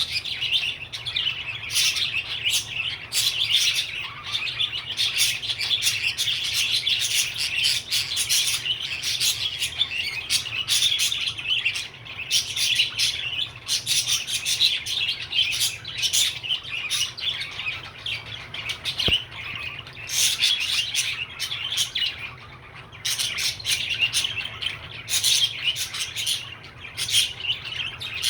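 Budgerigar chirping and warbling, a busy stream of chatter with sharp clicks that barely pauses, easing off briefly about two-thirds of the way through.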